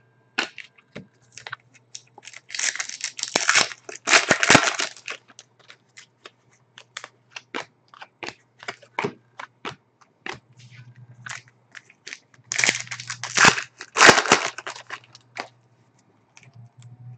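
Hockey card pack wrappers crinkling and tearing open in two spells, about 3 s and 13 s in, each a pair of crackling rips. Between them come many light clicks and flicks of trading cards being handled and sorted.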